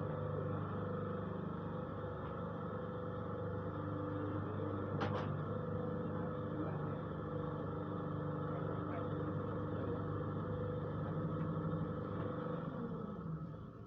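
Paving-block press machine's motor running steadily, with one sharp click about five seconds in. The running sound drops away near the end.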